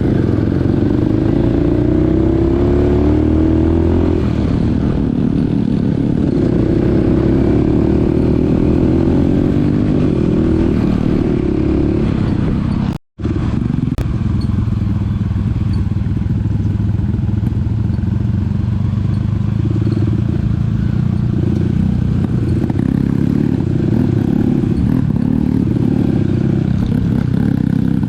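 Mini dirt bike engine running under load on an uphill climb, its pitch rising over the first few seconds and then holding fairly steady. The sound drops out for a moment about halfway through.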